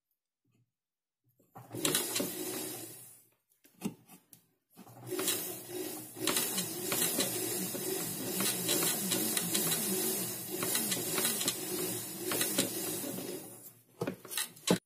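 Jeweler's rotary handpiece spinning a brass wire brush against a freshly soldered chain joint to brighten the metal, which the soldering has left reddish. A small motor whines, wavering in pitch, over a scratchy hiss of the brush. It runs in two short spurts around two and four seconds in, then steadily for about nine seconds and stops shortly before the end.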